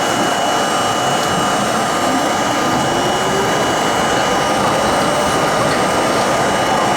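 Budd-built R32 subway car running at speed through the tunnel: a steady loud rush of wheel and rail noise with thin steady high tones over it, and a faint rising motor whine about two seconds in.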